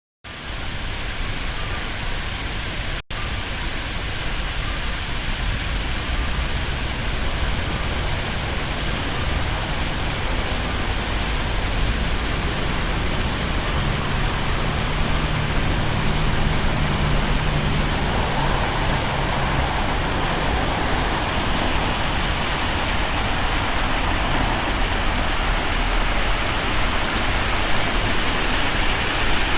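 Water pouring steadily down an artificial waterfall, a constant rushing noise. A low hum rises under it for a few seconds about halfway through, and the sound cuts out for an instant about three seconds in.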